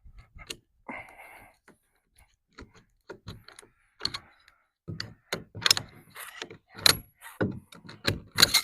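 Irregular knocks and clicks from handling a shipping crate by hand; the loudest knocks come in the second half.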